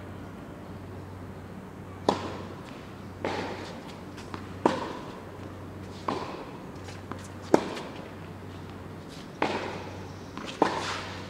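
Tennis rally on an indoor court: the ball struck by rackets in a string of sharp pops, starting about two seconds in and coming roughly every one and a half seconds, each ringing on in the hall's echo. A steady low hum runs underneath.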